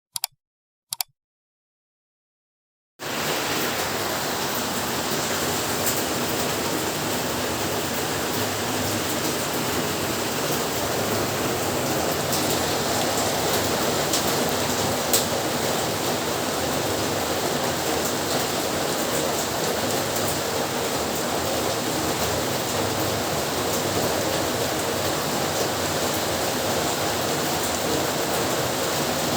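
Heavy rain falling steadily, a dense even hiss that comes in abruptly about three seconds in, after near silence broken by two brief clicks.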